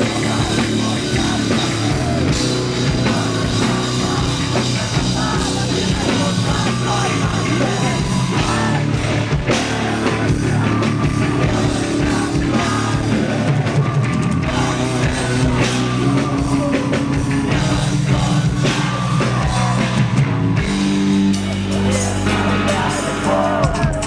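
Rock band playing live, with drum kit, heavy guitars and a singer; the low bass pattern changes about 20 seconds in.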